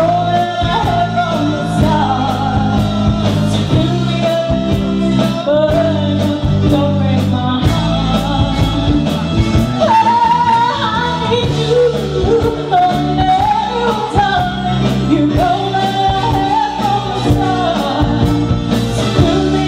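Live rock band playing a song: a woman sings the lead melody over electric guitars, keyboard and a drum kit, with cymbal ticks keeping a steady beat.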